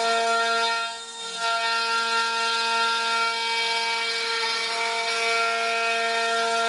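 Router spindle on an automatic wood-carving machine whining steadily at high speed as its cutter mills a pattern into a wooden post. The cutting noise dips briefly about a second in.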